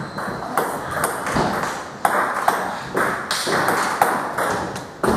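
Table tennis rally: the ball clicks sharply off paddles and table, about two hits a second.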